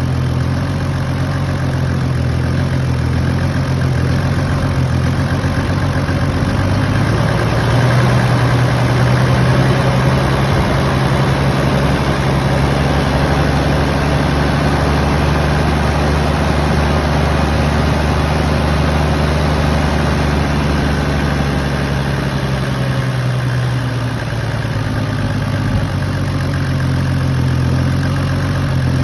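Toyota 1HZ inline-six diesel engine running at idle, an idle the owner calls rough, with power loss. About seven seconds in the engine speed rises slightly and holds, then settles back down near the end.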